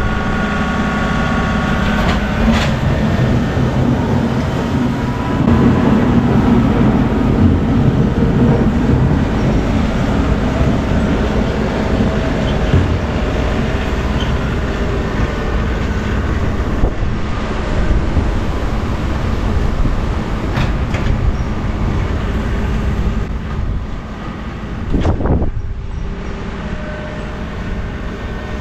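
Tractor engine running steadily under load, with a continuous low rumble.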